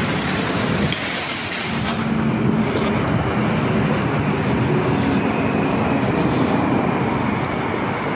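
Steady drone of a motor vehicle's engine running nearby, with a low hum coming through from about two seconds in.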